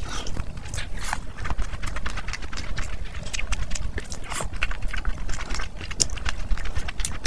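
Close-miked eating sounds: a person chewing with many wet mouth clicks, while her fingers squish and mix rice with mutton curry on a plate and bring a handful to her mouth.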